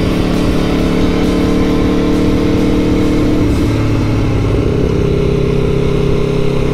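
Aprilia Tuono V4 motorcycle engine running as the bike is ridden, with background music playing.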